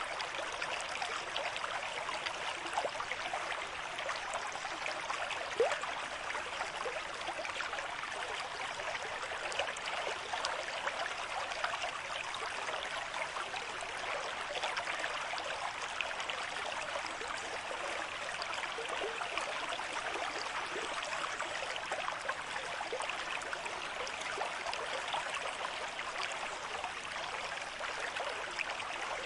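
River stream flowing at a moderate rate, a steady rushing with fine splashing and babbling.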